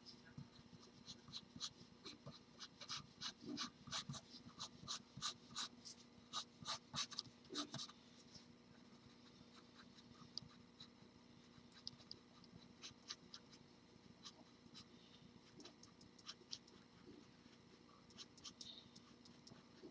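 Faint pencil strokes scratching on drawing paper while sketching: quick short lines, many in rapid succession for the first several seconds, then fewer and more spaced out.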